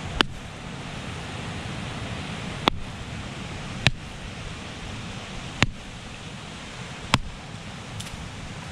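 A machete striking the shell of a husked coconut to crack it open: five sharp knocks, spaced one to two and a half seconds apart, with a fainter one near the end. Steady surf washes behind.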